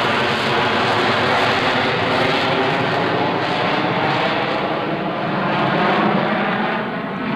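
C-130 Hercules's four turboprop engines at full climb power overhead: a loud, steady roar with a propeller drone running through it, easing slightly near the end.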